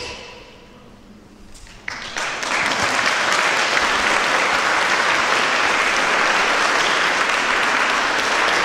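Audience applauding in a hall, breaking out suddenly about two seconds in and holding steady.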